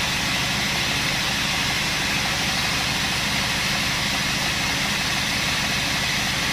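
Sawmill band saw machinery running steadily, a constant machine hum with an even hiss over it.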